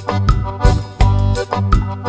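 Background music with a steady beat, about three beats a second.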